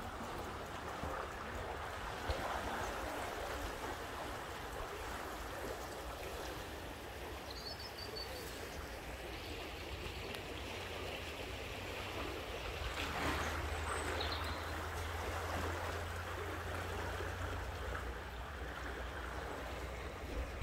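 Steady rush of river water pouring through the channel beside a Thames lock. A few short high chirps sound about a third of the way in and again past the middle, and a low rumble swells in the second half.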